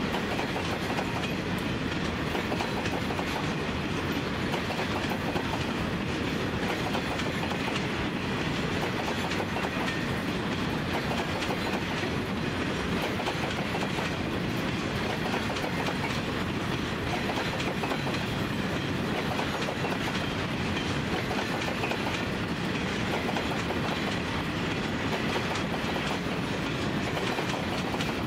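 Empty grain hopper wagons rolling past in a long train, their steel wheels clicking and rumbling steadily over the rails.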